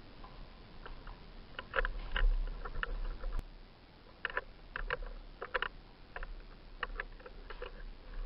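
Irregular clusters of sharp clicks and crunches over a low rumble, loudest about two seconds in and again around five and a half seconds.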